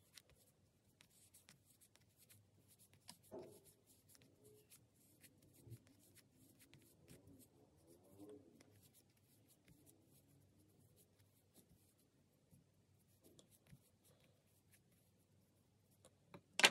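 Faint rustling and light scratching of fiber stuffing being packed into a small crocheted piece with the tips of a pair of scissors, with scattered small clicks from handling and a sharper click near the end.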